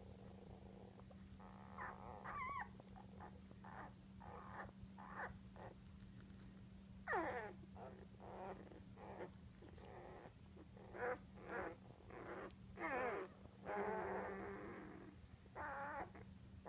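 One-week-old English setter puppies squeaking and whining: a string of short, high calls, many sliding up or down in pitch, with a longer wavering whine near the end.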